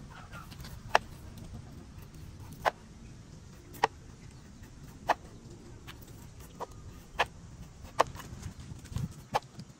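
Knife peeling a pumpkin on a wooden chopping board: sharp taps of the blade striking the board as each strip of peel comes off, about nine at uneven intervals, the first, about a second in, the loudest.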